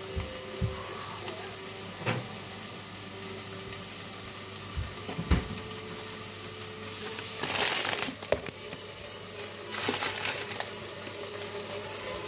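Chicken frying in a pan, a steady low sizzle, with a few knocks and two louder noisy bursts about two-thirds of the way through.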